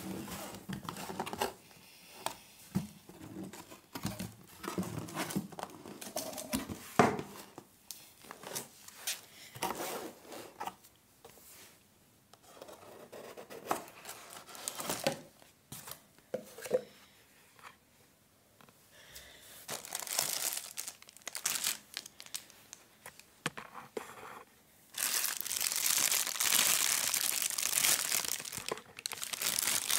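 Packaging being handled: the cardboard box and moulded pulp inserts rustle and knock, with scattered sharp taps. For the last few seconds a louder, continuous crinkling of a clear plastic bag wrapped around a charger cable takes over.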